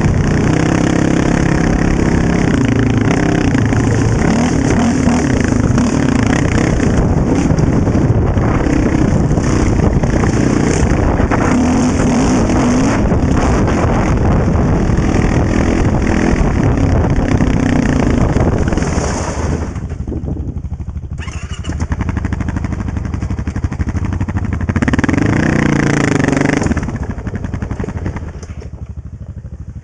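Honda TRX700XX quad's single-cylinder engine running under throttle, heard from on board while riding a dirt trail. About two-thirds through the throttle closes and it drops to a quieter run, revs up again briefly a few seconds later, then drops back near the end.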